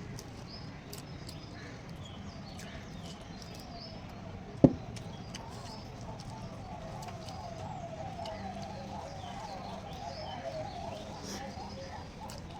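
Small birds chirping in the background, with one sharp knock about four and a half seconds in. A wavering, warbling call comes through for several seconds in the second half.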